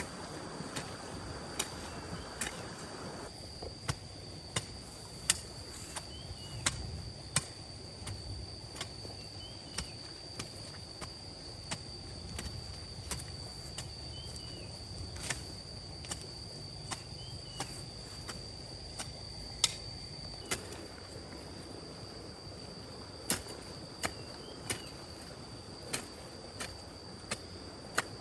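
Sharp knocks repeating about once or twice a second, over a steady high-pitched insect drone, with short rising chirps now and then.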